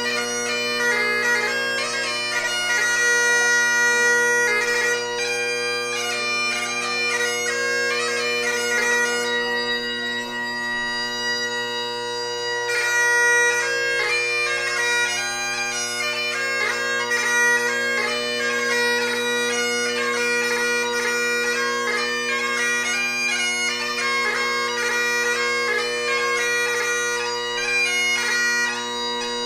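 Solo Highland bagpipe playing a tune: steady, unbroken drones underneath a chanter melody that moves quickly from note to note.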